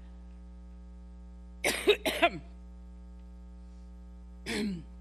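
A woman coughing in a severe coughing fit: two hard coughs in quick succession about two seconds in, then a shorter one near the end. A steady electrical hum runs underneath.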